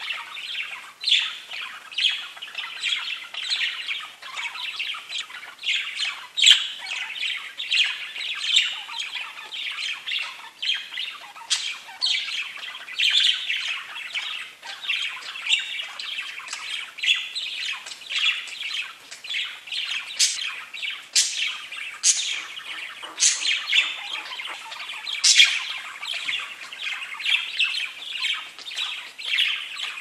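Pet budgerigars (budgies) chirping and warbling without a break, a dense chatter of short calls with frequent sharp, higher chirps standing out.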